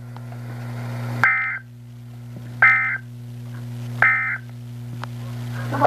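Emergency Alert System end-of-message signal: three short bursts of warbling SAME data tones, about a second and a half apart, marking the end of the tornado warning broadcast. A steady electrical hum runs underneath.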